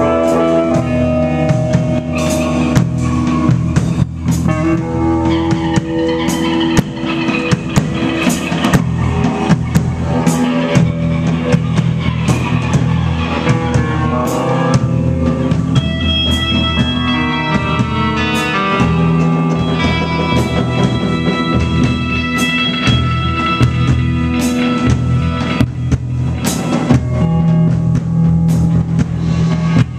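Live rock band playing: electric guitar holding sustained notes over a drum kit keeping a steady beat.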